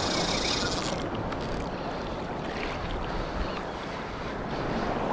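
Small waves of calm surf washing and sloshing around a wading angler, with wind rushing over the microphone.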